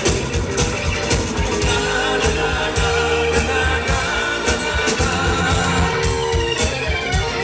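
Live rock band playing with a steady drum beat, electric guitars and keyboards, and a male lead singer at the microphone.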